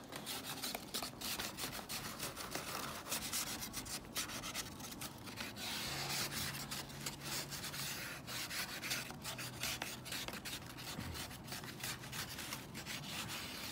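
Ice being scraped and rubbed off a frozen car: a run of quick, irregular rasping strokes, with a faint low hum for a few seconds in the middle.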